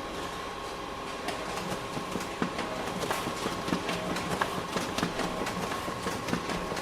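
Office printer running: a steady mechanical hum with a faint held tone, and from about a second in a run of irregular clicks and knocks from the printing mechanism.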